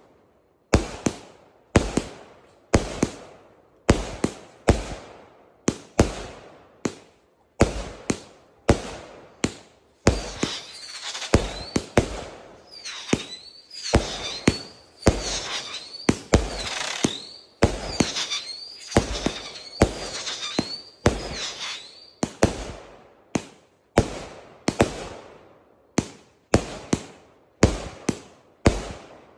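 100-shot consumer firework cake firing shot after shot, a rapid run of sharp bangs about two a second. For about twelve seconds in the middle, whistles that rise and fall over and over sound over the bangs.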